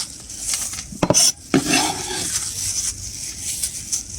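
A metal utensil clinking and scraping against a pot of braised pork, over a light sizzle. There are a few sharp knocks about a second in.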